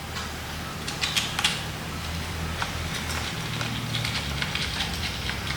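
Light clicks and taps of a small battery flap-disc grinder's plastic guard and body being handled and refitted, with a cluster of sharper clicks about a second in, over a steady low hum.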